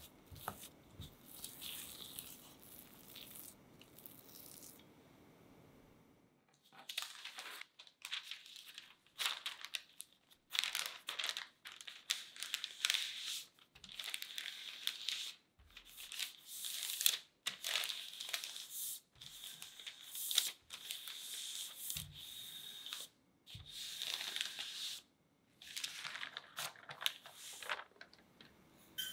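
Soft scraping of dough being worked for the first few seconds. Then parchment paper crinkles and rustles in repeated irregular strokes as a sheet is laid over the cocoa sable cookie dough and rolled flat with a rolling pin.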